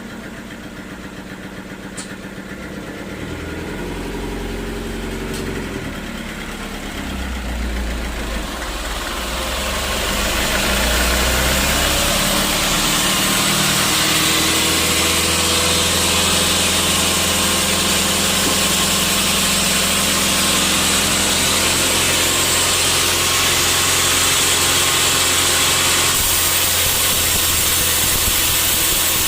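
Sawmill saw and its drive running: a machine hum with shifting low tones that builds up, then from about ten seconds in a loud, steady rushing hiss of the blade cutting through a teak log.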